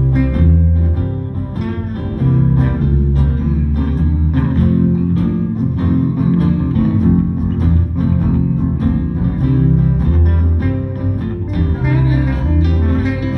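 Instrumental break of a country-western song: guitars playing over a bass line, with no singing.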